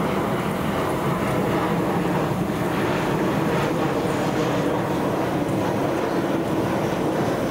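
Airplane flying low overhead: a loud, steady rumble.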